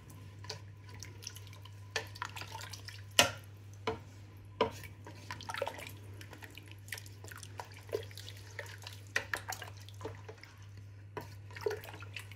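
Liquid in a cooking pot of mutton and chana dal curry: irregular wet plops, drips and small splashes, with a low steady hum underneath.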